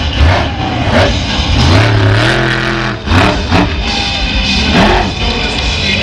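Monster truck engine revving up and down over and over, with music playing loudly at the same time.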